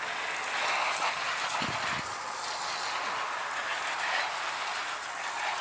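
Garden hose spray nozzle on a shower setting, water spraying steadily onto plant leaves and soil in a raised bed.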